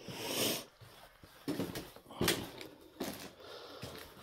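A heavy breath, then footsteps on a floor strewn with debris and litter: a few separate steps, less than a second apart.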